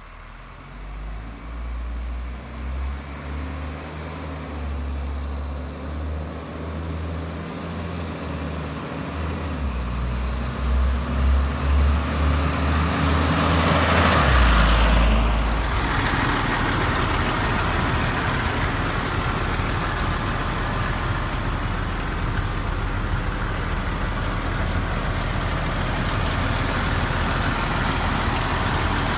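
Diesel engine of an International 2574 Vac-Con sewer vacuum truck rumbling as the truck drives up, growing louder, with a short hiss about halfway through as it pulls in, then running steadily.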